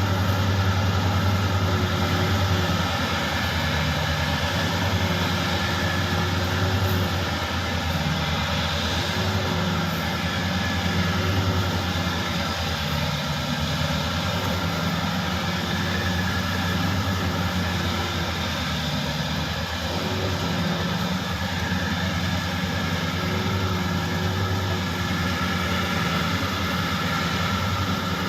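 Rice combine harvester running continuously under load, a steady engine drone with mechanical clatter, its pitch wavering slightly every couple of seconds.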